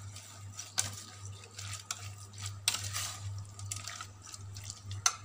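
Hand mixing raw prawns in a wet marinade of yogurt, lime juice and spices in a stainless steel bowl: wet squelching with irregular clicks against the metal. A steady low hum runs underneath.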